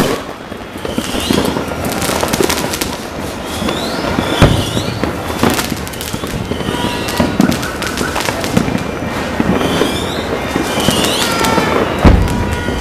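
New Year's fireworks and firecrackers going off in a dense, continuous barrage of bangs and crackles, with two loudest booms about four seconds in and near the end. Short high whistling glides recur throughout.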